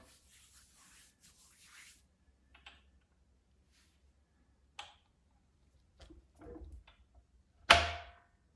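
Small clicks and rubbing from an old safe's combination dial and handle being worked by hand, then one sudden loud clunk near the end.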